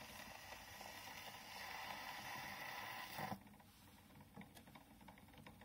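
Faint steady hiss of a steel gramophone needle running in the silent end groove of a record, heard through a 3D-printed PLA soundbox on an HMV 101 gramophone. A little over three seconds in, a click as the soundbox is lifted off the record stops the hiss, and a few faint handling ticks follow.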